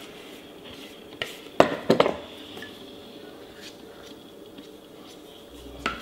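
Kitchen utensils clinking as a rubber spatula and knife scrape the last of the cake batter into a glass baking dish. There are a few sharp taps, the loudest two about a second and a half and two seconds in.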